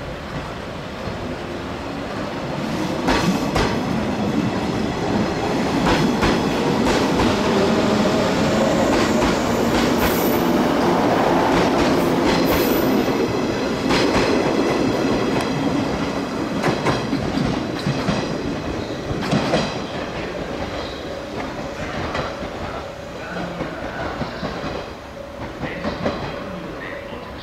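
Electric multiple-unit train running past on jointed rail, its wheels clicking over the rail joints. It grows louder about three seconds in, has a couple of brief high squeals midway, then slowly fades.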